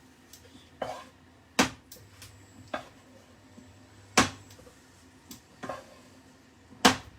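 Kitchen utensils knocking and clacking against cookware: about six sharp, separate knocks at uneven intervals, the loudest three spaced a couple of seconds apart.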